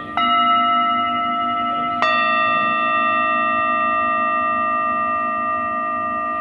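Metal bells struck twice, once just after the start and again about two seconds in. Each strike rings on for seconds with several overlapping tones and a slow wobble, over tones still sounding from earlier strikes.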